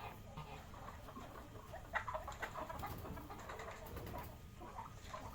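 Chickens clucking, a busy overlapping mix of short calls from the flock, loudest about two seconds in.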